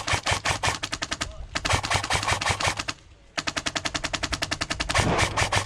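Airsoft gun firing on full auto: rapid, evenly spaced shots in long bursts, with a brief break about a second and a half in, a short pause about three seconds in, then another long burst.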